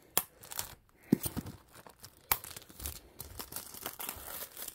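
Plastic shrink-wrap being torn and crinkled off a 4K Blu-ray case, with a few sharp knocks from handling near the start.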